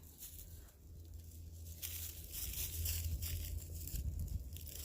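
Rustling and crackling begins about two seconds in and goes on in a run of small, uneven ticks, with a faint low hum underneath.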